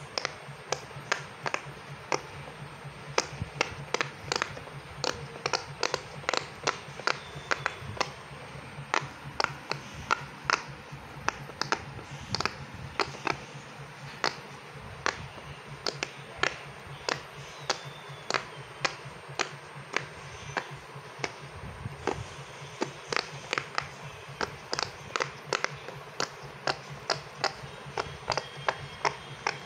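Fingers pressing down the bubbles of a large silicone push-pop fidget toy one after another: a steady run of quick pops, about three or four a second.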